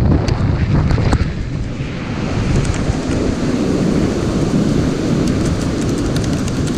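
Strong wind buffeting the microphone, a loud steady low rumble, with a few sharp clicks about a second in and faint light ticks later on.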